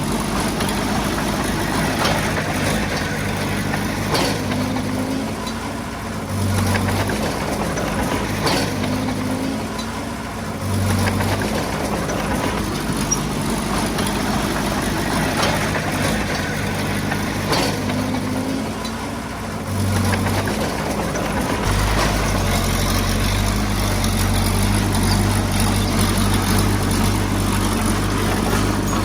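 Diesel engine of a small crawler bulldozer working under changing load, its note rising and falling every few seconds and becoming steadier and heavier near the end, with a few sharp knocks.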